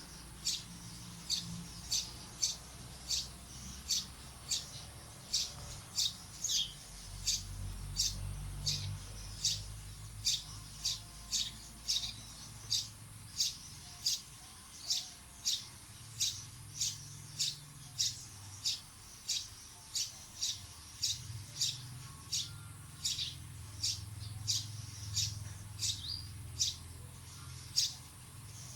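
A bird repeating one short, high chirp at a steady pace of about two chirps a second, over a faint low hum.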